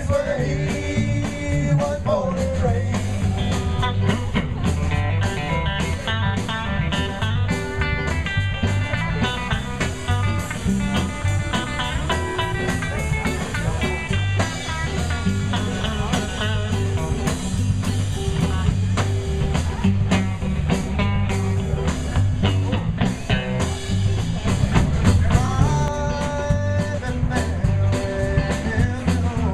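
Background music: a bluesy rock song with guitar and singing over a steady beat.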